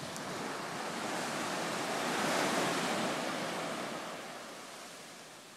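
Small waves washing up on a sandy beach, the surf swelling to a peak about halfway through and then fading, with some wind.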